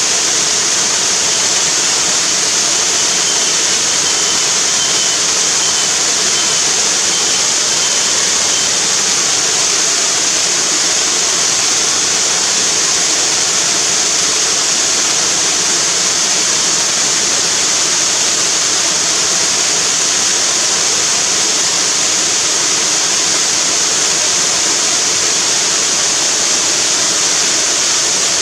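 River waterfall: water pouring and splashing in a steady, unchanging rush.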